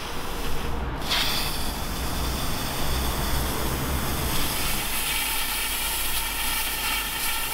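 Plasma cutter hissing steadily as it cuts a round flue hole through a narrowboat's steel roof, louder from about a second in.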